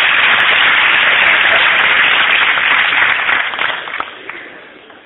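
Audience applauding: dense, loud clapping that dies away about four seconds in.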